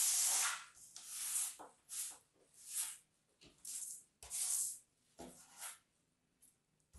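Kinetic sand crushed and crumbled by hand, a series of about seven crunchy, grainy rustles roughly a second apart, the first the loudest and the rest fading.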